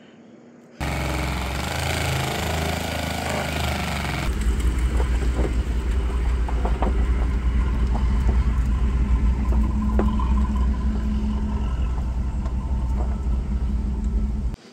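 Truck engine running at low speed. The sound deepens about four seconds in, with a few faint clicks over it, and it starts and stops abruptly.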